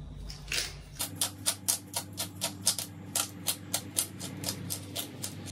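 Pepper grinder twisted over a saucepan, cracking black peppercorns: a rapid, even run of crunching clicks, about four or five a second.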